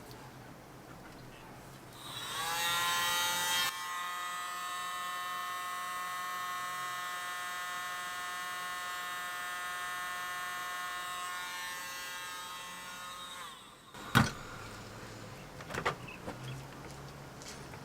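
Small electric air blower switched on, its motor whine rising in pitch as it spins up, then running steadily for about ten seconds before winding down and stopping. A sharp knock comes just after it stops, with a few lighter clicks.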